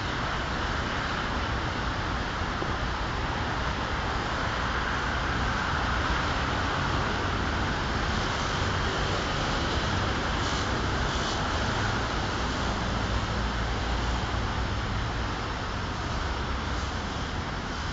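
Steady rumble of distant traffic, fairly loud and unchanging.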